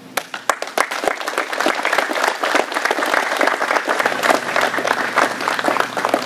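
A group of people applauding: many overlapping hand claps that break out suddenly and keep going.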